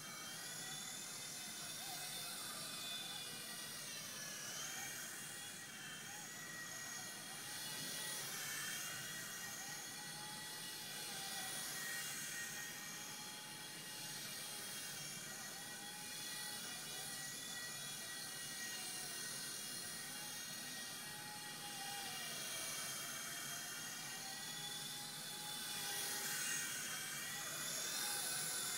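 WLtoys V911 Pro micro RC helicopter in flight: a high electric-motor whine with rotor buzz, its pitch wavering up and down as the throttle changes, with a few deeper dips and swoops.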